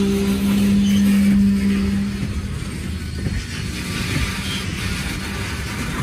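Loaded coal hopper cars rolling past, steel wheels rumbling on the rails. A steady low hum runs under it and stops about two seconds in.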